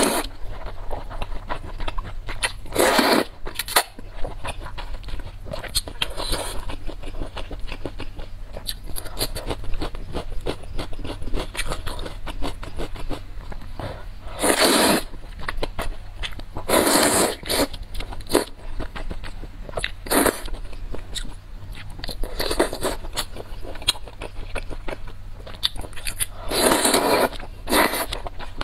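Close-miked eating of noodles in spicy soup: a long slurp every few seconds as strands of noodles are sucked in, with wet chewing and mouth clicks between.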